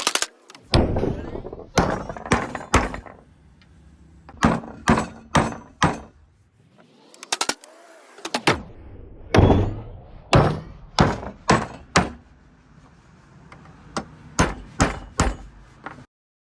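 Repeated hard strikes on wood while making a mortise and tenon joint, in runs of three to five blows about half a second apart with short pauses between runs.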